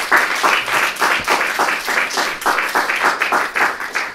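Small audience applauding, many hands clapping densely; the applause dies away at the end.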